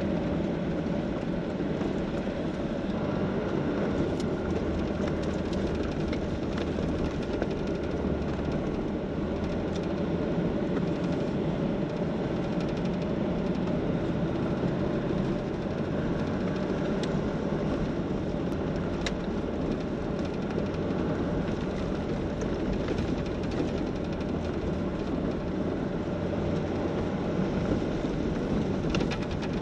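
Jeep driving along at a steady pace, with constant engine and road noise.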